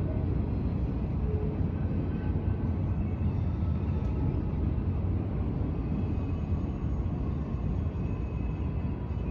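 A steady low rumbling hum with a few faint thin tones above it, unbroken and without distinct events.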